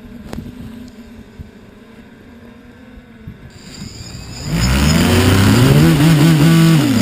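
Racing quadcopter's motors and propellers whining loudly as it comes in close, the pitch rising and falling with the throttle, starting about four and a half seconds in; before that only a faint steady hum.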